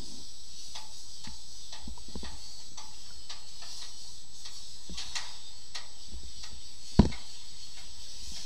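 Underwater sound picked up through a camera's housing: a steady hiss with faint, irregular clicks and one loud sharp knock about seven seconds in.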